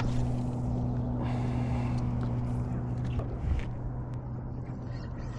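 Boat motor running steadily with a constant low hum; a higher tone in the hum drops out about three seconds in.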